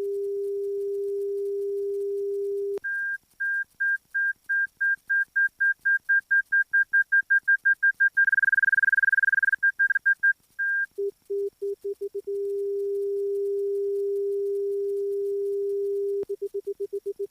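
Electronic beeper tones. A steady low tone cuts off about three seconds in. A higher beep then repeats faster and faster until it runs into one continuous tone, slows again and stops. Low beeps then speed up into a steady low tone, which breaks into rapid pulsing near the end.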